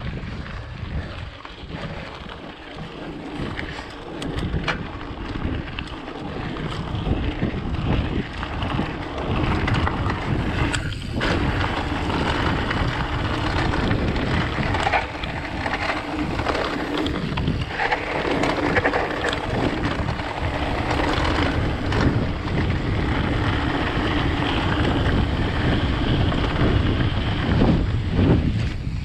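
Wind buffeting the microphone of a mountain bike in motion, over tyre noise on a dirt trail and scattered knocks and rattles from bumps. It grows louder after the first several seconds.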